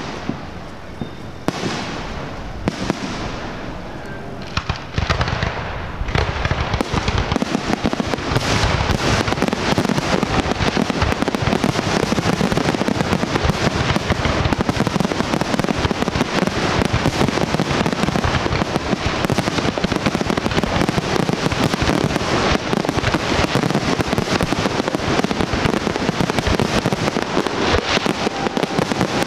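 Aerial fireworks display: separate bangs and crackles, then from about six seconds in a continuous dense barrage of rapid bangs and crackling.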